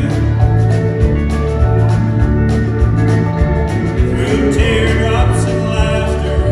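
Live country band music: drums, bass, guitar and keyboards playing steadily, with voices singing.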